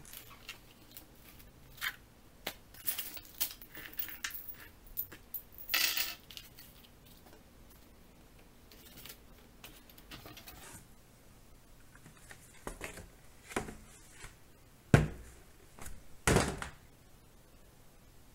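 A Monopoly box and its plastic money tray being handled on a wooden table: scattered light clicks and rattles of plastic and cardboard. About three-quarters of the way through comes a sharp knock, the loudest sound, then a short sliding scrape.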